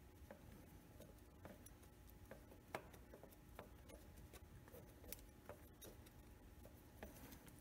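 Near silence with faint, scattered clicks and rubbing as hands work a choke cable loose from the linkage of twin SU carburetors.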